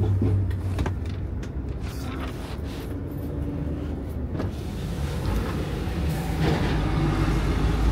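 Sprinter motorhome's engine and road noise as a steady low rumble, with a few faint knocks; it grows louder toward the end.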